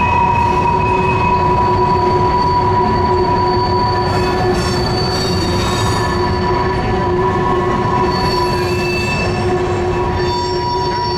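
Freight train of BNSF covered grain hopper cars rolling by on a bridge: a steady low rumble of wheels on rail with several held, high-pitched wheel-squeal tones that come and go.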